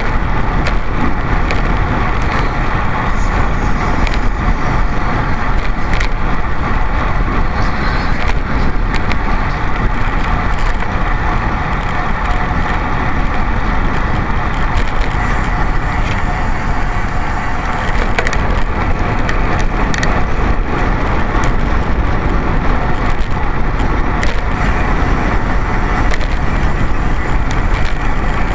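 Steady rattling, crackling noise of a racing bicycle ridden fast on asphalt, picked up through a camera mounted on the bike: road vibration shaking the mount, with sharp clicks now and then.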